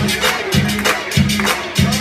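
Loud dance music with a strong, steady beat and heavy bass.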